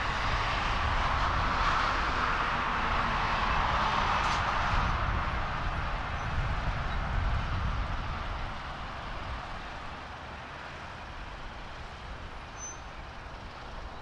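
Boeing 777-200ER's GE90 jet engines on landing and rollout: a steady jet rush with low rumble, loudest in the first few seconds, then dying away after about eight seconds as the airliner slows down the runway.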